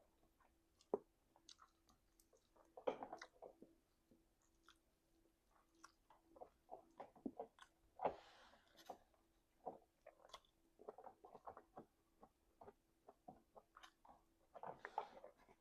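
Close-up wet, open-mouthed chewing: irregular smacks and clicks of food being munched, with louder flurries about three seconds in, around eight seconds and near the end.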